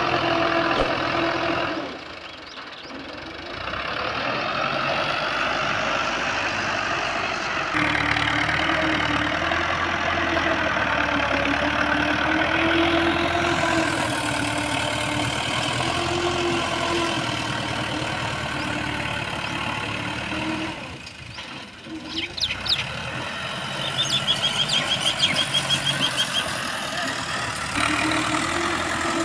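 Massey Ferguson 260's three-cylinder diesel engine running steadily as the tractor pushes soil with its front blade; the engine sound drops away briefly twice. A quick, high-pitched, rapid chatter sounds for a couple of seconds near the end.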